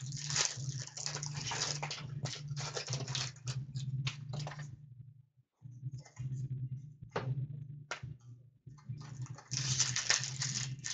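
Trading-card packs being torn open and the cards handled: wrapper crinkling and rustling with scattered sharp clicks, over a steady low hum. The sound drops out for a moment about halfway.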